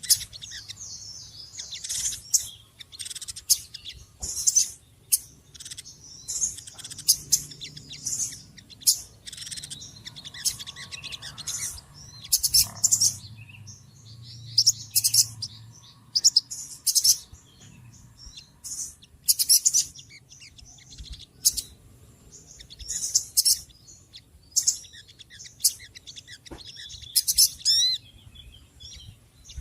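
Small birds chirping busily and loudly: short high-pitched chirps in quick, irregular flurries, with a fast run of sweeping notes near the end.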